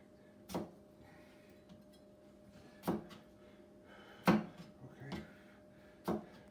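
Kitchen knife chopping through raw potatoes onto a cutting board: five sharp knocks at uneven intervals, the loudest about two-thirds of the way through.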